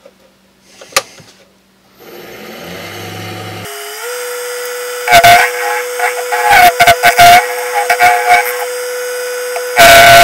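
A wood lathe starts up about two seconds in, whirs up in steps and settles to a steady hum. From about five seconds a lathe chisel cuts the end of the spinning wooden handle in several loud, scraping bursts with a ringing tone, the cut chattering because the piece is slightly out of balance.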